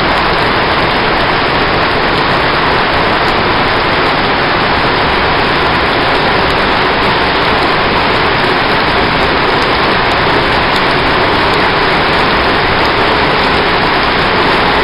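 Heavy rain falling steadily on surfaces: a dense, even hiss without a break.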